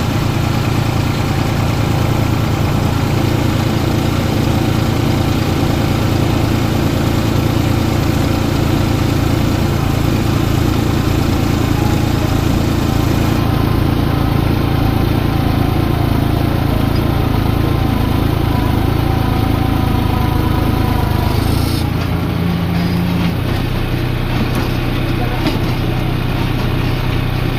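Tractor engine running steadily under the load of a PTO-driven earth auger boring a pit into soil. About twenty seconds in, the engine note shifts and gets slightly quieter.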